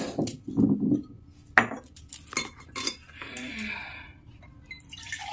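Clay karwa pots and a steel tumbler knocking and clinking as they are handled and set down on a counter: a string of separate sharp knocks. About three seconds in, a second or so of water pouring.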